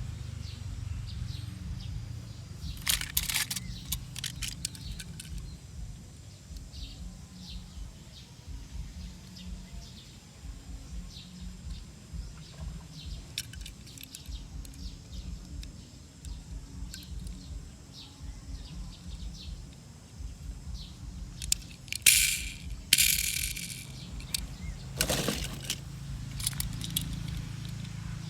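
Light clinks and rattles of small hard objects over a steady low rumble, with a cluster about three seconds in and the loudest clinks a little past twenty-two and twenty-five seconds in.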